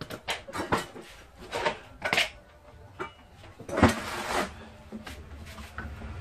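Wooden knocks and clatter of a heavy teak table frame being handled and tipped up on end: a quick run of sharp knocks in the first couple of seconds, then one loud thump nearly four seconds in.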